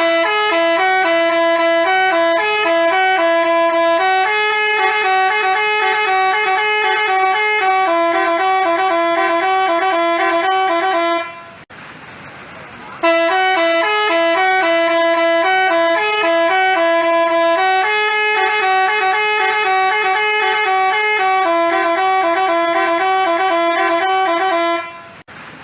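Basuri telolet bus horn playing a tune in stepped notes, played through twice with a short break between.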